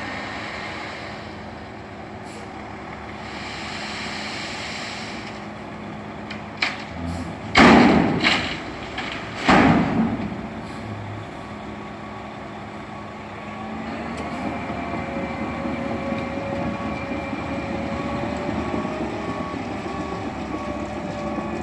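Heavy road-construction machinery at work: a diesel engine running steadily, a few loud bangs about a third of the way in, then the engine revving up while a backup alarm beeps at an even pace.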